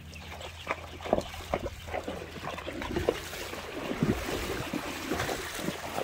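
Horses wading through a shallow stream, hooves splashing irregularly in the water. The splashing grows denser and hissier in the second half.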